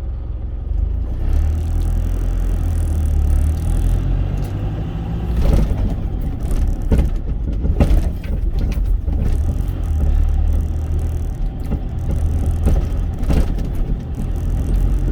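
Truck cab interior while driving: a steady low engine and road rumble, with a few brief knocks or rustles over it.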